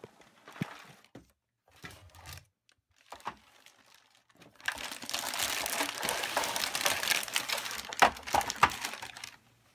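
Thin clear plastic packaging bag crinkling as it is handled and pulled off a plastic toy van. A few light rustles and taps come first. About four and a half seconds in, loud steady crinkling starts and runs for several seconds, with a couple of sharper snaps near the end.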